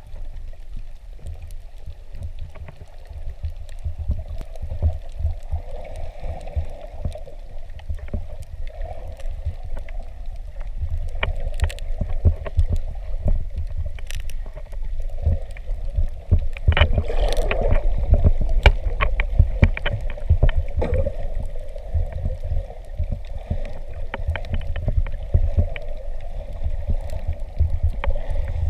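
Muffled underwater noise on a camera in its waterproof housing: an uneven low rumble of water moving against the housing, with scattered sharp clicks and crackles throughout.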